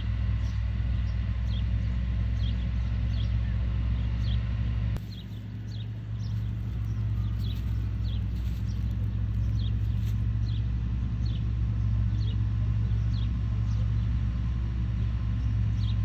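Steady low rumble of city traffic, dipping briefly about five seconds in, with a bird repeating a short, high, downward-sliding chirp about once a second.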